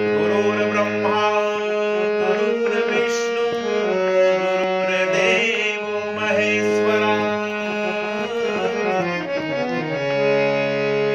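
Harmonium playing the introduction to a bhajan: held reed chords over a low drone, with the melody moving in short runs of notes and settling on a long held chord about ten seconds in.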